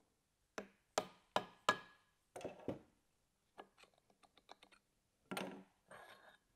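Metal tool work on a pump bearing housing: four sharp knocks, a short rattle, then a run of light quick clicks as a screwdriver works the bearing cover's set screws. Near the end comes a scrape and a faint metallic clatter as the bearing cover is handled and lifted from the housing.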